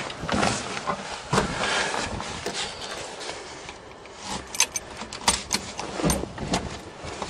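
Scattered clicks, knocks and rustling from someone handling things around a pickup truck, with a cluster of sharp clicks in the second half; the engine is not running.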